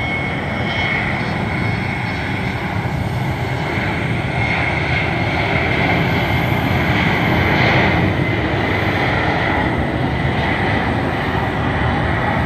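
Airliner engines running loud and steady, a broad rush with a thin high whine over it, swelling a little about midway.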